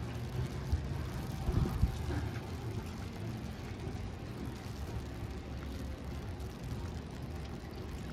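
City street ambience: a steady low rumble of traffic, with a few short thumps about one and a half to two seconds in.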